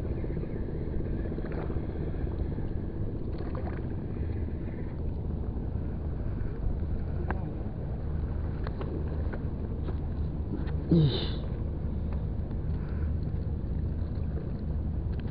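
A boat engine drones steadily at a low pitch, with scattered light clicks and one short, sharp sound that falls in pitch about eleven seconds in.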